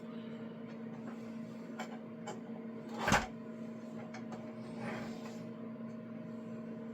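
A steady hum runs throughout, with a few light clicks and one sharper click about three seconds in, from PTFE tubing being worked out of the push-fit clasps of a Bambu AMS unit.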